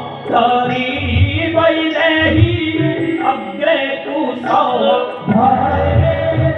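Song from an Odia Ramanatak folk stage play: a voice singing over instrumental accompaniment, with strong low beats now and then.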